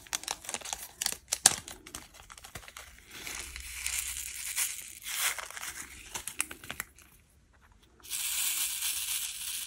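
A small plastic zip bag of resin diamond-painting drills crinkling as it is opened and the drills are poured into a sorting tray. Light clicks come in the first couple of seconds, then rustling that stops briefly and returns as a steady hiss near the end.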